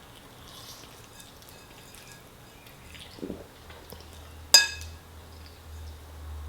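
Quiet eating of spaghetti, with a single sharp clink of cutlery against the bowl about two-thirds of the way through.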